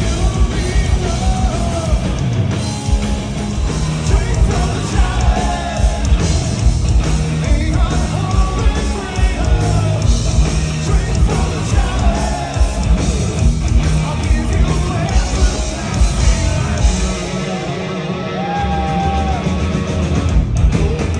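Live heavy metal band playing, with drums and sung and shouted vocals over the band. Near the end the drums drop away while the singer holds one note, then the sound cuts off.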